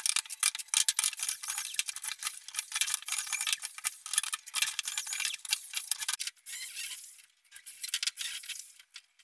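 White pipe chair frames being handled, giving a dense run of small irregular clinks and rattles that thins out after about six seconds.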